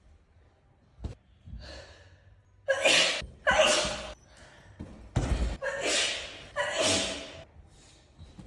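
A young woman sneezing in a fit: several loud sneezes in quick succession, starting about three seconds in, with quick breaths drawn in before them.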